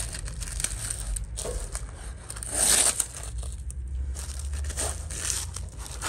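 Clear adhesive tape crinkling and tearing as it is pressed onto and pulled up from a carpet to lift spilled bird seed husks, with one loud rip about halfway through and smaller crackles around it.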